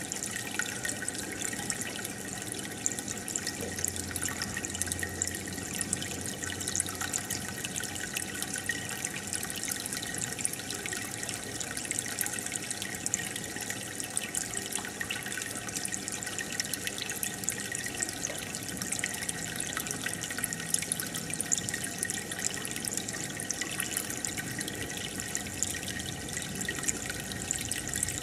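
Aquarium water trickling and bubbling steadily, full of tiny drips and pops.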